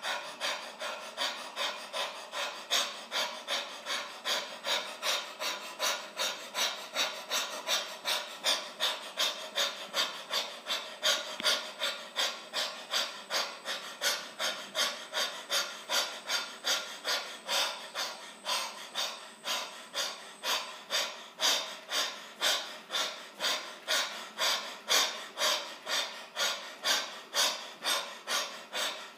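A man panting rapidly and forcefully through an open mouth in an even rhythm, about two to three breaths a second: a deliberate dog-like panting breathing exercise for the lungs.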